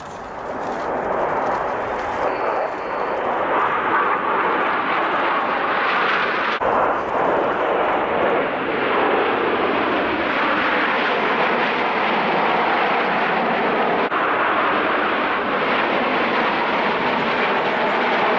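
Jet noise from a formation of Aermacchi MB-339 jet trainers flying past, a steady rushing drone that grows louder over the first few seconds. About ten seconds in, the pitch falls as the jets pass.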